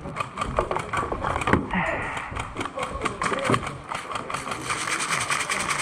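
Rapid run of mechanical clicks, joined about two seconds in by a steady whir, like a small electric motor driving a gearbox.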